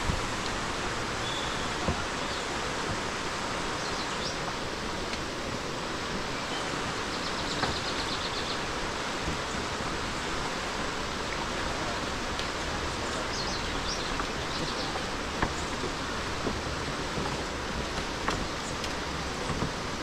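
Steady rushing noise with a few faint clicks and, a couple of times, faint high trills.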